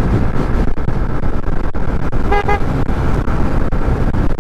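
Wind and road noise on a moving scooter, a steady low rumble, with one short horn toot about two and a half seconds in.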